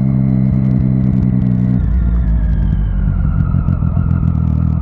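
A motorcycle engine running steadily under way. About two seconds in, the note drops and turns rougher as the bike slows, and a faint whine falls slowly in pitch.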